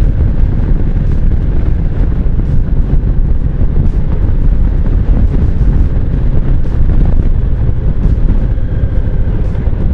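Kawasaki Vulcan cruiser motorcycle running at road speed, mostly heard as a loud, steady rumble of wind buffeting the microphone, with the engine's drone underneath.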